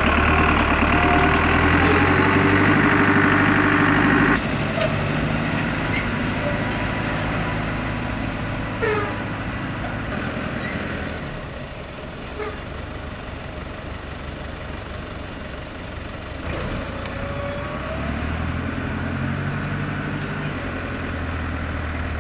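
JCB Fastrac tractor's diesel engine running under load, driving a tractor-powered wood chipper. The sound is loud and steady at first, then drops in level about four seconds in and runs on lower and rougher, with a few short knocks.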